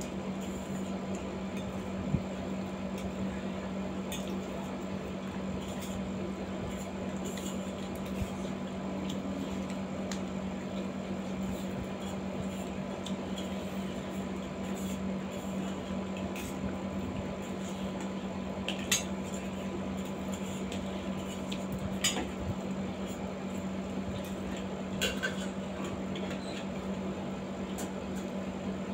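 Forks and spoons clinking and scraping on steel plates, with a few sharp clinks, amid the mouth sounds of eating and slurping spicy noodles. A steady low hum runs underneath.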